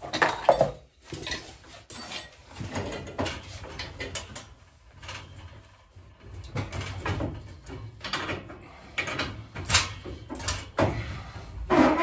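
Irregular metal clicks, knocks and scrapes of hand work on a gas boiler's gas-valve piping, with fittings and tools being handled and turned.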